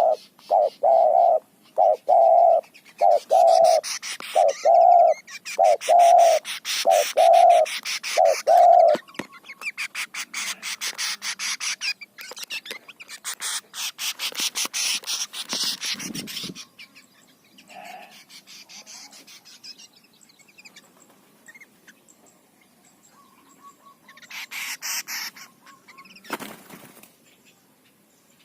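A spotted dove cooing in a run of low, evenly repeated notes for about nine seconds. Alongside and after it another bird gives a rapid, harsh chattering rattle, which stops about sixteen seconds in. Only faint scattered bird calls follow.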